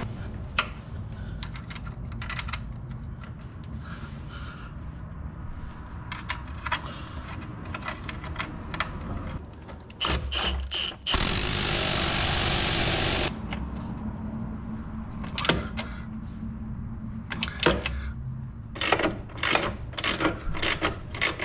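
Metal clicks and clinks of a socket, extension and wrench working the bolts of a steering box adapter plate on the truck frame. About eleven seconds in, a loud, steady rush of noise lasts about two seconds and then stops.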